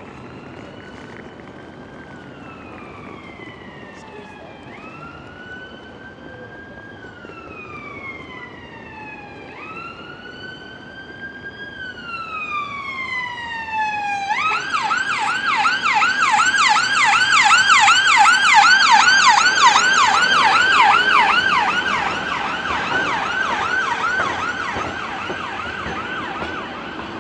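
Emergency vehicle siren in a slow wail, each sweep rising quickly and falling slowly, a few seconds apart. About halfway through it switches to a fast yelp of roughly three sweeps a second. It grows louder, is loudest a little past the middle, then fades.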